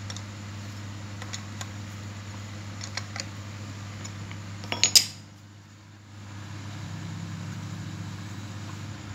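Light metal clicks of a hex key working the blade-clamp bolts on an electric hand planer's cutter drum, with a quick run of sharp metallic clinks about five seconds in. A steady low hum runs underneath.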